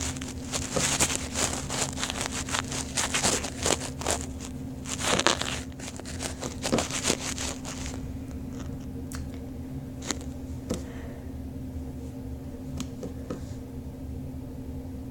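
Sticky marshmallow slime being stretched, squished and pulled apart by hand, giving dense crackling and tearing sounds for about the first eight seconds, then only occasional clicks.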